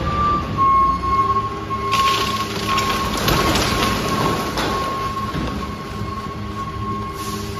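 Garbage truck tipping its body to dump a load of trash, its engine running under a steady high whine. About two seconds in, the trash slides out with a rushing, clattering spill that lasts a few seconds, then eases off.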